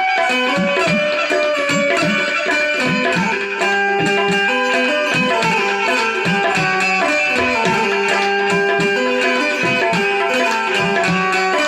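Instrumental music on tabla and banjo. The banjo plays a stepping melody of held notes over a steady tabla rhythm, and the low bass-drum strokes bend in pitch.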